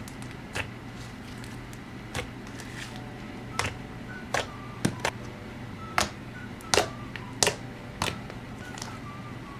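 Thick, smooth slime being pressed and squeezed by hand, giving sharp pops and clicks at irregular intervals, about ten in all, with more of them in the second half. Faint background music plays underneath.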